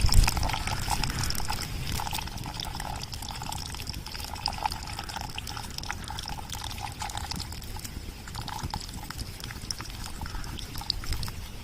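Tamarind gravy simmering in a clay pot, a steady bubbling and spluttering made of many small pops.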